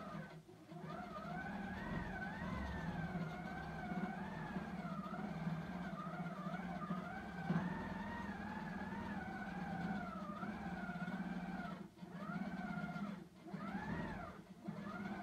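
HQ Simply Sixteen quilting machine stitching, its motor humming with a whine that rises and falls in pitch as the machine is moved across the quilt. It briefly slows or stops a few times near the end.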